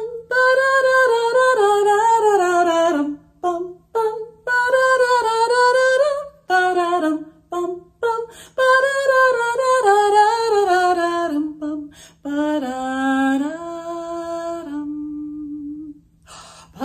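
A woman singing a wordless tune in phrases of a few seconds with short pauses between, the pitch gliding up and down; the last phrase settles onto low held notes.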